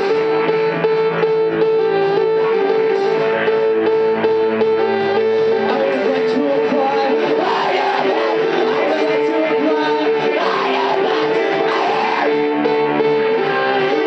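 Live pop band playing loudly: drum kit, keyboard and guitar under sustained held notes, with a woman singing into a handheld microphone.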